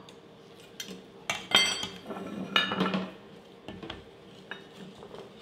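Metal tongs clinking against a stainless steel mixing bowl as tossed salad is lifted out for plating: several separate clinks, the loudest ringing briefly about a second and a half in.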